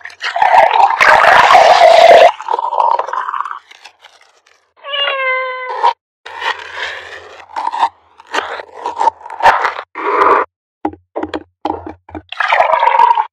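Syrup poured over ice in a glass, then a single cat meow. After that a knife chops a bitter melon on a plastic cutting board in a run of short crunchy cuts, and near the end chopped pieces are tipped into a plastic blender jar.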